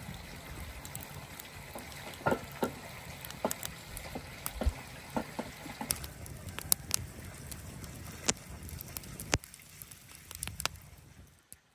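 Open wood fire crackling, with many sharp pops and snaps scattered over a steady low rush; it falls away near the end.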